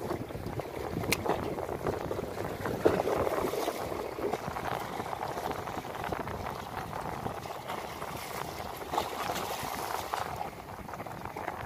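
Small sea waves lapping and splashing against the concrete blocks of a seawall, a steady watery wash that swells and eases, with one sharp click about a second in.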